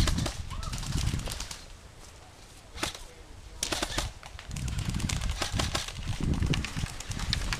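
Airsoft guns firing sharp single clicks and short quick bursts, with a cluster of shots about three and a half seconds in. Low rumbling noise runs beneath them.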